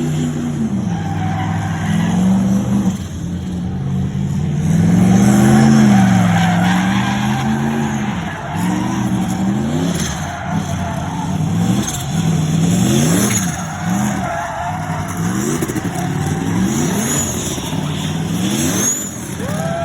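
Turbocharged car engine revved repeatedly: one long swell, then quicker blips about once a second, with turbo whooshing and whistling over the engine note. A short whistle rises and falls near the end.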